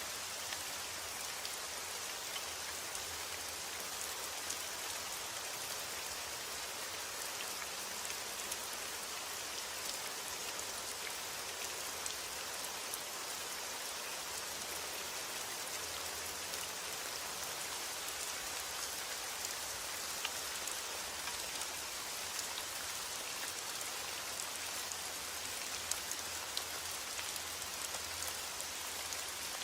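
Steady rain falling on a surface, an even hiss dotted with light scattered drop ticks.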